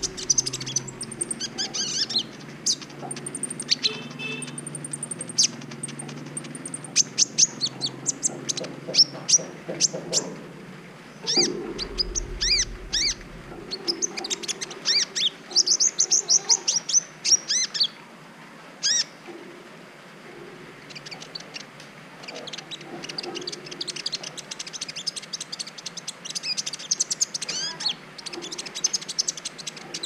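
A kolibri ninja sunbird, a young bird still in green plumage, singing rapid runs of sharp, high chirping notes with short gaps between the runs. This is the kind of song kept as a master recording to teach other birds and to rouse them to breeding.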